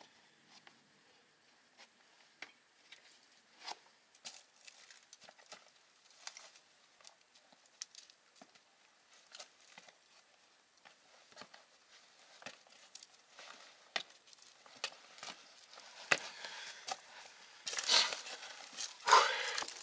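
Scuffs, scrapes and crunching grit from shoes and hands scrambling over crumbly sandstone. Scattered small clicks at first, becoming louder and busier over the last few seconds.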